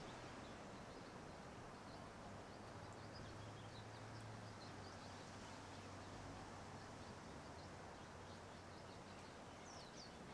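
Near silence: room tone with a faint steady low hum and a few faint, short high chirps.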